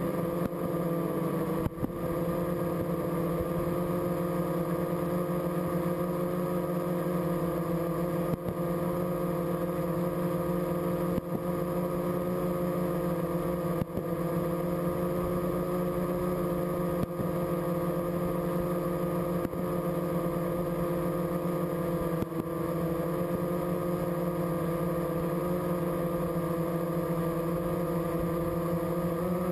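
Multirotor drone's electric motors and propellers humming steadily in a hover, a constant multi-tone whine with no change in speed.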